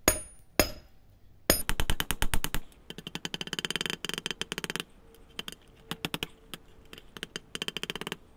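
Hand hammer beating a rebar knife blade flat. There are two single blows at first, then quick runs of ringing metal strikes, and scattered groups of blows near the end.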